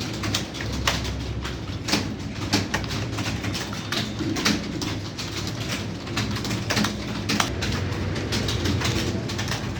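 Computer keyboard being typed on: irregular, sharp key clicks, several a second, at a steady working pace.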